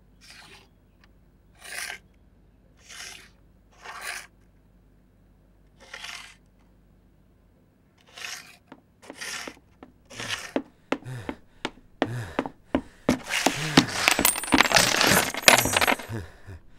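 Coins being handled: a few separate sliding scrapes, then single clinks coming faster and faster. Near the end comes a dense, loud jingle of many coins with a metallic ring.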